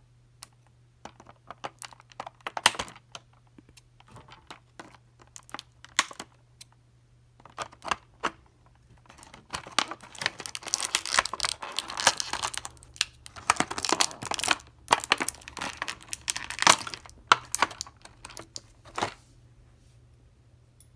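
Clear plastic blister packaging crinkling and crackling as a toy figure is worked out of its tray by hand. Scattered clicks and crackles come first, then a long busy spell of crinkling, dying away shortly before the end.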